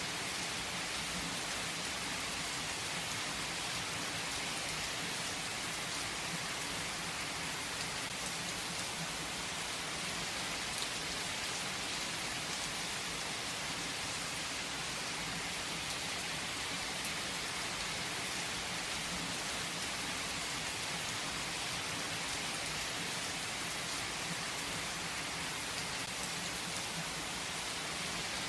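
Heavy rain falling steadily on a tree's leaves, a dense even hiss with the occasional sharper drop tick.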